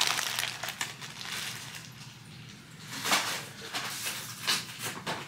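Plastic packaging rustling and crinkling in handling, in irregular bursts, loudest right at the start and again about three and four and a half seconds in.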